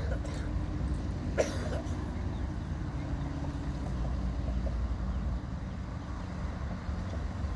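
Distant diesel locomotive of an approaching train, heard as a steady low rumble. One short, sharp sound comes about a second and a half in.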